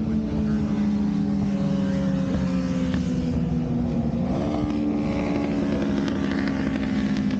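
Motorcycle engine running at high, fairly steady revs, the pitch dipping and rising again about four seconds in.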